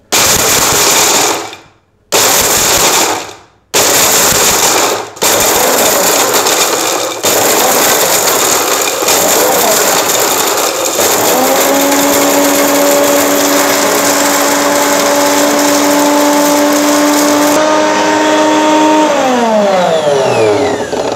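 Orpat Kitchen Platinum 1200 W mixer grinder grinding hard dried turmeric pieces in its steel jar: three short pulses at first, then a steady run with a harsh grinding noise. After about eleven seconds it settles into a steadier motor whine with clear tones, and near the end the pitch falls as the motor is switched off and spins down.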